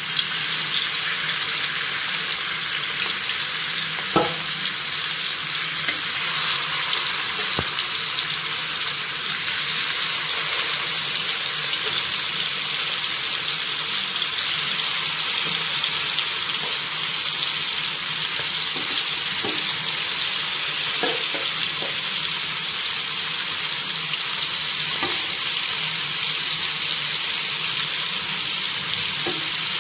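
Sardines coated in salt, chilli and turmeric shallow-frying in hot oil on a cast-iron dosa tawa: a steady sizzle, with a few faint clicks scattered through it.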